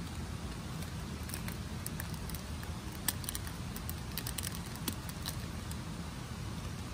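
Wood fire crackling under a grill grate: irregular sharp pops and ticks, one louder snap about three seconds in, over a steady low rumble.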